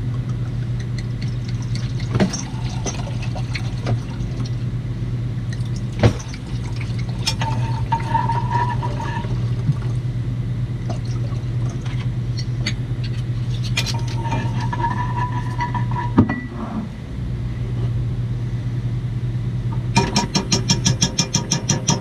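White wine glugging as it is poured from a bottle into drinking glasses, once about eight seconds in and again around fourteen seconds, over a steady low hum. A quick run of clicks comes near the end.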